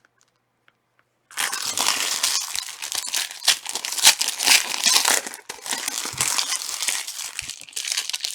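Plastic wrapping of trading card packs being torn open and crinkled by hand, a dense crackling rustle that starts suddenly about a second and a half in and goes on with many small sharp crackles.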